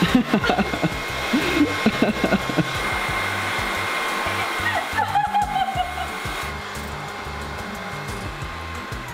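Cordless stick vacuum cleaner running, a steady motor whine over an even rush of airflow.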